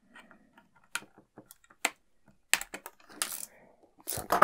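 Plastic toy packaging being cut open with a craft knife and handled: a string of light, irregular clicks and short crackles, with a louder clatter about four seconds in.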